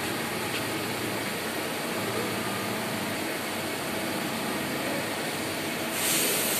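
Steady machine-shop noise of CNC lathes running. Near the end a louder hiss comes in.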